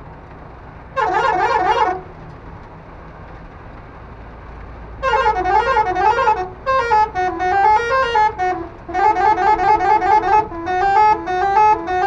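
Six-trumpet telolet horn on a truck playing its melodies from the module's buttons: a short warbling tune about a second in, then from about five seconds a longer run of tunes whose pitch steps up and down, with short breaks between phrases.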